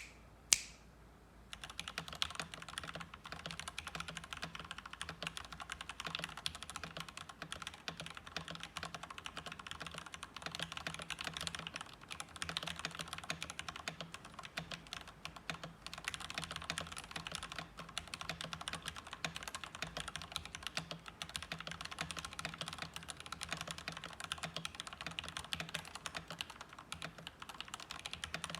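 Fast, continuous typing on a stock Maxfit67 mechanical keyboard with milky yellow linear switches. It starts about a second and a half in, after a single sharp click half a second in.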